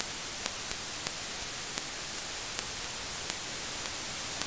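Steady hiss of the Behringer X32 digital console's mic preamp noise, its inputs terminated with a 150-ohm short and the gain near +40 dB. Faint small clicks come every half second to a second as the X32 channel gain is turned.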